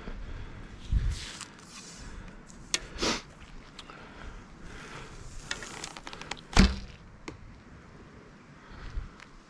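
Archery shot on a 3D course: a few knocks and clicks, the loudest a sharp thunk about six and a half seconds in as an arrow strikes a foam 3D animal target.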